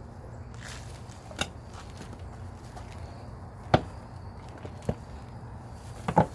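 A few sharp knocks and chops of digging into a container of soil to unearth sweet potatoes. The loudest comes about four seconds in, with a quick double knock near the end.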